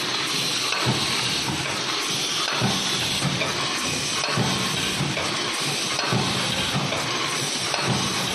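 KCS 1000 paper lunch box making machine running: a steady hiss with a regular low thump about every second and three quarters.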